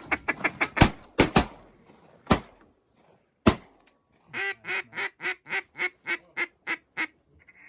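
Shotgun blasts: three in quick succession about a second in, then two more spaced out. They are followed by a run of about ten evenly spaced duck quacks.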